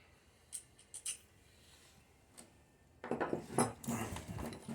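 Hand tools clinking against metal: a few separate sharp clicks, then a quicker run of clicking and rattling in the last second and a half.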